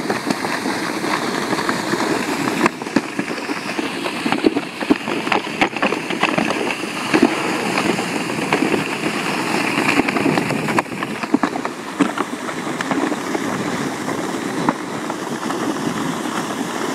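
Wheels rolling over a packed, icy snow road, a steady crackling rumble with many small clicks as the wheels run over the crust.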